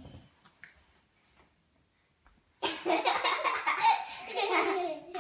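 Children laughing, a loud burst of quick, pulsing laughter that starts about halfway through and lasts nearly three seconds, after a quiet start with a few faint knocks.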